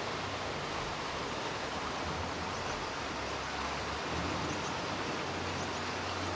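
Steady outdoor background noise, an even hiss with a faint low hum that comes and goes.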